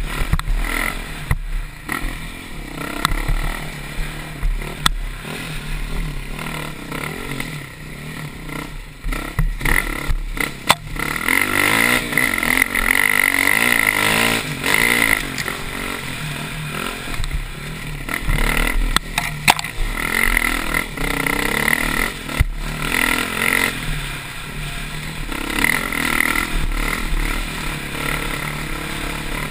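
Dirt bike engine under hard throttle, revving up and down as the rider climbs a rough trail, loudest about twelve to fifteen seconds in. Sharp knocks and clatter come through now and then.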